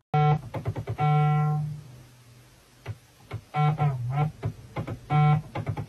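Phone ringtone playing: a short electronic keyboard-like melody of quick notes ending on a held note, with the phrase repeating.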